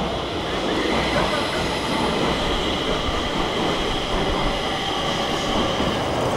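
Steady rumble and hiss of a Stockholm metro train running through the station, with a faint high whine over it.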